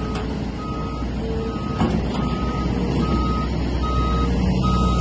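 Heavy diesel excavator engine running with a steady low drone, while a motion alarm beeps evenly, a short beep a little more than once a second.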